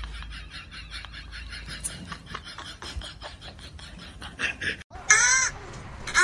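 An animal's rapid, evenly pulsing chattering call that fades out. After a sudden cut, two loud wailing cries come near the end.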